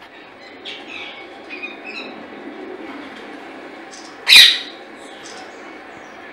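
Ring-necked parakeet giving a few soft chirps, then one loud, shrill squawk about four seconds in.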